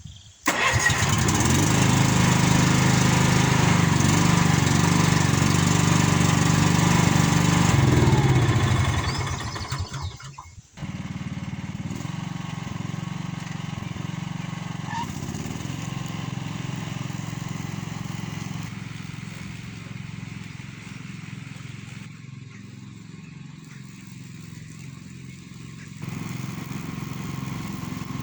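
Honda HF1211 ride-on mower engine running on its replacement ignition key switch. It comes in loud and steady about half a second in and fades after about eight seconds. After a short break near ten seconds it runs on steadily at a lower level, dipping for a while before rising again near the end.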